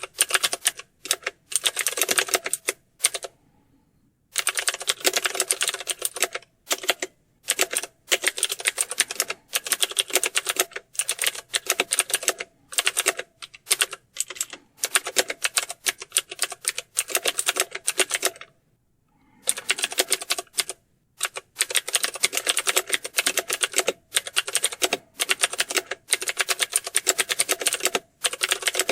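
Fast typing on a computer keyboard: rapid keystroke clicks in long runs, broken by brief pauses a few seconds in and again past the middle.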